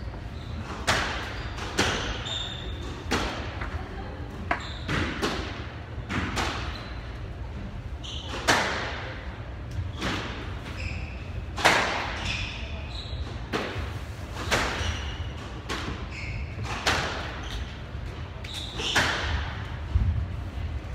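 A squash ball being struck and hitting the walls of a neighbouring court: sharp, echoing hits at uneven intervals of about a second, with a few short squeaks of court shoes on the hardwood floor between them.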